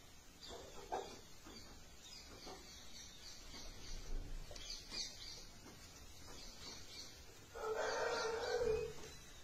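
Faint high chirping of small birds throughout, then a rooster crows once, about a second long, near the end.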